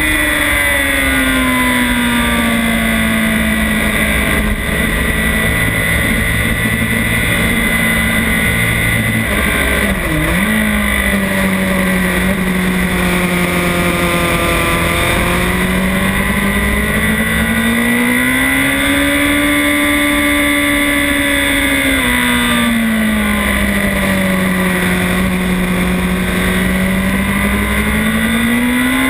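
Honda CBR1000RR inline-four sportbike engine heard onboard at speed, its note sinking and climbing again several times as the throttle is rolled off and back on through the corners, over steady wind rush on the microphone. About ten seconds in the note dips sharply and recovers at once.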